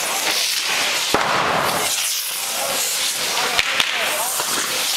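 Carretilles (hand-held ground rockets) hissing loudly and without a break as they spray sparks, with a sharp crack about a second in and two more just before the four-second mark.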